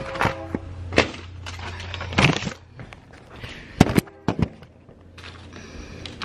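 A series of sharp knocks and clicks, about eight over six seconds, with a quick cluster near the middle, like objects being handled or set down.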